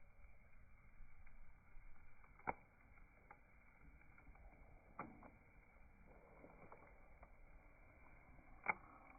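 Bonfire crackling quietly: a faint hiss with scattered sharp pops of burning wood, three louder ones spaced a few seconds apart.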